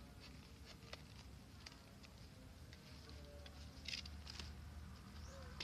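Faint crackling and rustling of a cardboard shipping box being pulled open by hand, with scattered small clicks and a louder crinkle about four seconds in.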